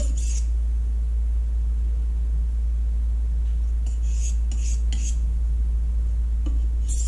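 Knife blade stroked across the 1,000-grit side of a sharpening stone, refining the edge: a couple of short scraping strokes at the start and a few more around four seconds in. A steady low hum runs underneath.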